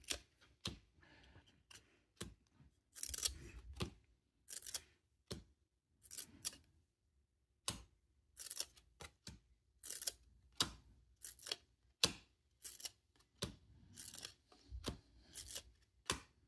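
Stack of glossy Fleer Ultra football cards being flipped through by hand, each card sliding off the stack with a short, quiet swish, about one or two a second at an uneven pace.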